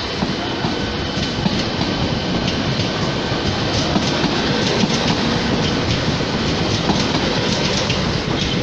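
Škoda RegioPanter electric multiple unit running past close by, a loud steady rolling noise with many sharp clicks from its wheels over the rail joints.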